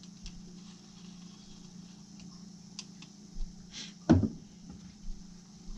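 Light clicks and handling noise as a piston ring is worked onto a piston, with one louder sharp knock about four seconds in and a couple of smaller ones after, over a steady low hum.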